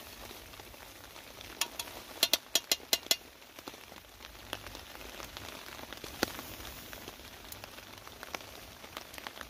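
Curry sizzling gently in a pan on a wood-burning firebox-style stove, with a quick run of sharp taps about two seconds in.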